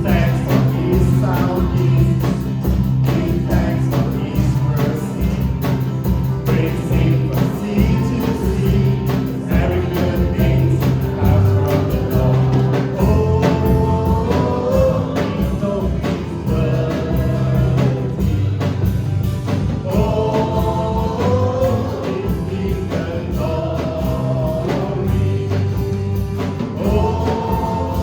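Worship song with a group of voices singing the melody over a band: strong bass notes and a steady drum beat underneath.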